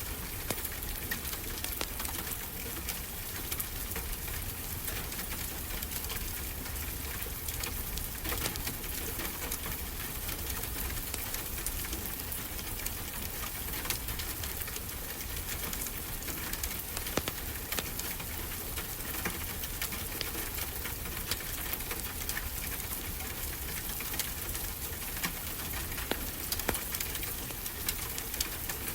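Wood fire crackling with scattered sharp pops over a steady wash of ocean surf and a deep low rumble.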